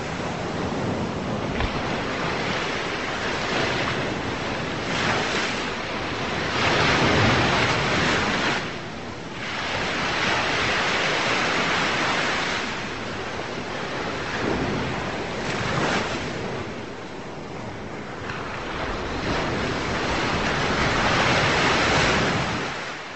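Ocean waves breaking and washing ashore: a steady rushing surf that swells and eases every few seconds, fading out near the end.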